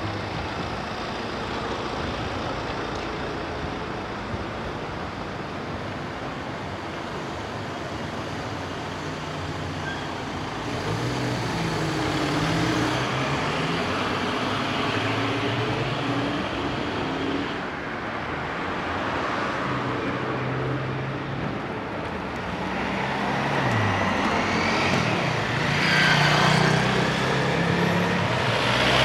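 Road traffic on a town street: cars passing at close range over a steady traffic hum, growing louder about halfway through and again near the end.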